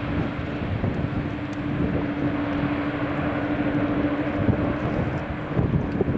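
Twin-turboprop airliner landing and rolling out on the runway: a steady propeller hum over a low engine rumble.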